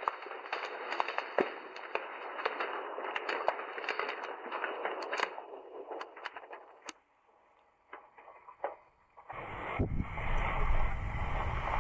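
Rockfall: a rushing noise of sliding debris packed with sharp cracks and clatters of rocks striking, which thins out and fades after about six seconds. About nine seconds in, a loud, deep rumble begins suddenly.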